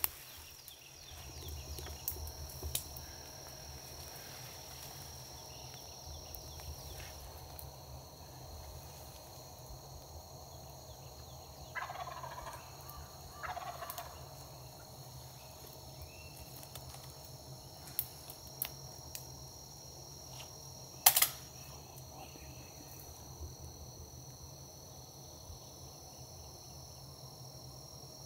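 Osceola wild turkey gobbler gobbling, one rattling call about twelve seconds in, over a steady high insect trill. A sharp crack about twenty-one seconds in is the loudest sound.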